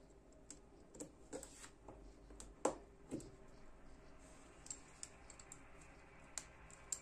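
Small metallic clicks and ticks from a Freetiger FT61 folding knife being handled. The blade swings open, with the sharpest click about two and a half seconds in and a second one just after. Lighter ticks follow.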